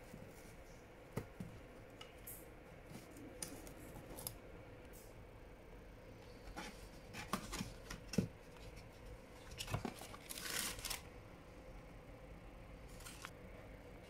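Cardboard face-mask dispenser box being torn open by hand along its perforated top: a run of short cardboard tears, taps and rustles, busiest in the second half.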